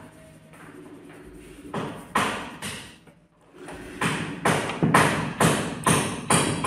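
A series of dull thumps. After a short quiet gap they settle into a regular beat of about two a second.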